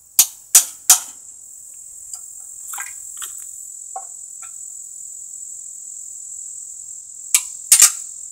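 Hammer blows on a wrench fitted to a stuck bolt on a small single-cylinder mower engine, to break it loose: three sharp metal strikes just after the start and three more near the end, with a few light clicks of the tools between. Crickets chirr steadily throughout.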